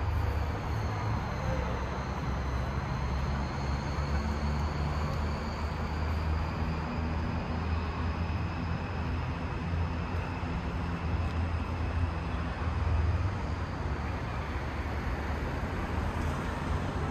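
Steady low rumble of distant city traffic, a continuous drone with no separate events.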